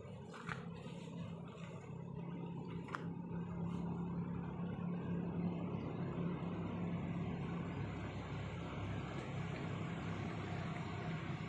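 A motor vehicle's engine running, a steady low hum that grows louder over the first few seconds and then holds.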